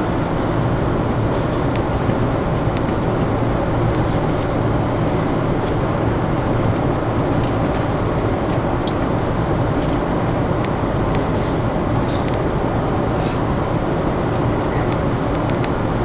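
Steady, even rumble and hum of an electric commuter train standing still with its equipment running, heard from inside the carriage, with a few faint ticks.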